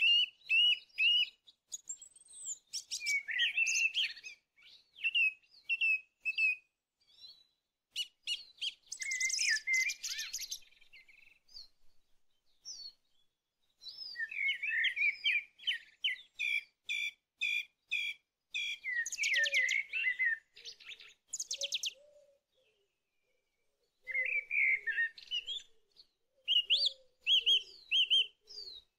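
Birds chirping in bursts of quick, high chirps and trills, with short pauses of a second or two between bursts. A lower call joins in during the second half.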